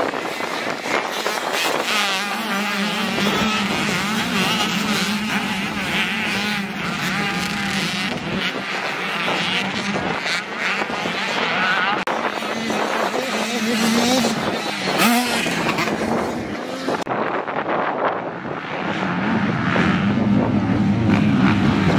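A pack of motocross dirt bikes racing, many engines revving up and down over one another. The sound changes abruptly about three-quarters of the way through.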